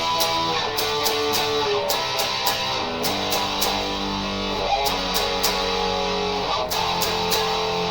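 Vicers HSS Strat-style electric guitar being played: picked and strummed chords, with a run of quick strokes and notes left to ring between them.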